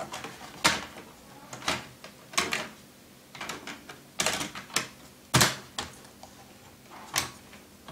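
An IBM ThinkPad laptop's plastic keyboard and its clips being pressed down into the frame: a series of irregular, sharp plastic clicks and taps, the loudest about five seconds in.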